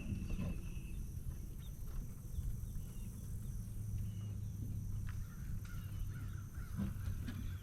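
Wind rumbling on the microphone over choppy water, with a few bird calls: short high calls near the start and about halfway, and a longer wavering call in the last couple of seconds.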